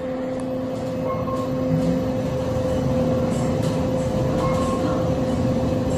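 KONE EcoDisc traction elevator car travelling down between floors: a steady ride hum inside the cab with a constant tone running under it.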